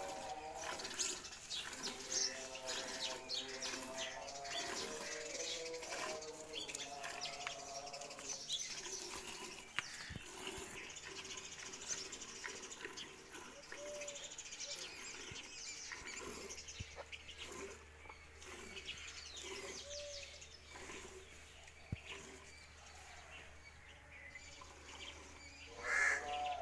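Small birds chirping in the background throughout, with faint pitched calls in the first several seconds and a short louder call near the end.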